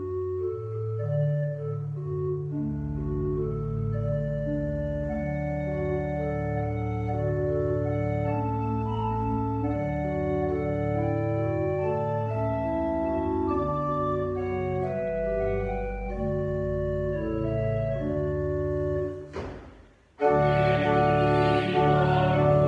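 Church pipe organ playing a hymn introduction in held chords that change step by step over a bass line. It stops briefly near the end, then the organ comes back in fuller with a woman's voice as the first verse begins.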